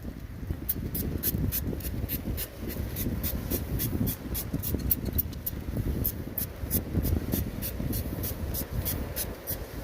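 Rhythmic rasping or scraping strokes, about three a second, pausing briefly midway, over a low rumble of wind buffeting the microphone.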